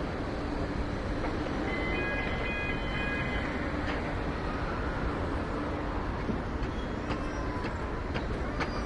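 Layered city construction ambience: a constant low rumble of distant traffic and heavy machinery. Short high steady tones sound a couple of seconds in, and sharp metallic clicks and high squealing glides come near the end.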